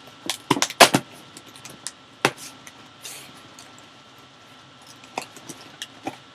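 Cardboard box and packaging being handled and pulled open: a series of sharp knocks and clicks, a cluster of loud ones in the first second, another about two seconds in, then lighter ticks near the end.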